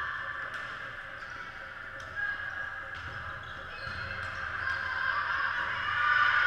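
Volleyball rally in a gym: a handful of sharp slaps of hands hitting the ball, over an echoing din of players' voices that grows louder near the end as the point finishes.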